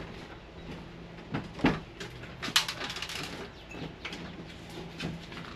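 A few sharp knocks and bumps, the loudest about two and a half seconds in and followed by a short scrape, as heavy HVAC equipment is handled and moved by hand. A faint steady low hum runs underneath.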